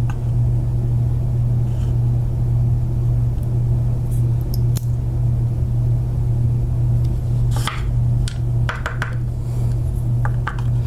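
Small sharp metallic clicks and taps from driver pins and springs being worked out of a pin-tumbler lock cylinder, a few about four seconds in and a cluster in the last few seconds, over a steady low hum.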